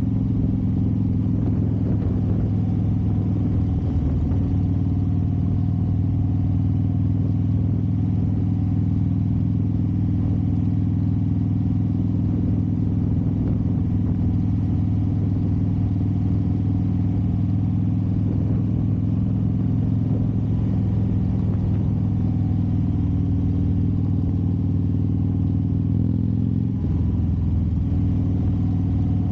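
Harley-Davidson Dyna Fat Bob's air-cooled Twin Cam 103 V-twin running steadily while cruising, heard from the rider's seat. The engine note changes briefly near the end.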